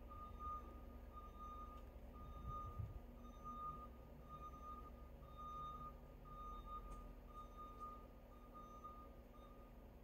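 Faint, evenly repeated beeping tone, about four beeps every three seconds, over a low background rumble; the beeping stops shortly before the end.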